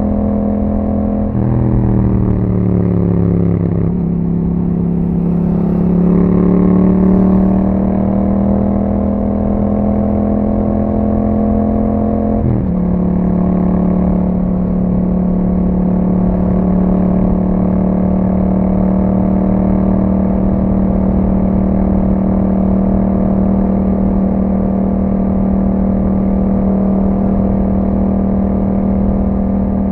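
2021 Yamaha MT-07's parallel-twin engine running through an Akrapovic exhaust on the move. A gear change about a second in is followed by the revs easing off, then climbing for several seconds. An upshift near the middle brings a sudden drop in pitch, and the engine then holds a steady cruise.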